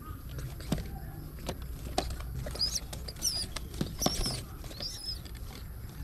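Pigeon squabs shuffling in a straw-lined wooden nest box, with scattered light knocks and rustles. From about two and a half seconds in come a few short, high, wavering squeaks.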